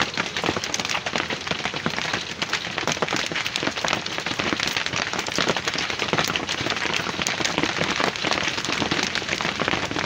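Heavy rain beating down on bare ground: a steady, dense crackle of countless drops hitting.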